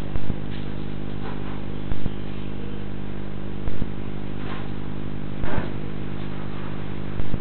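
Steady electrical hum made of several fixed pitches, with a sharp click about every 1.75 seconds, typical of the audio track of a CCTV recorder.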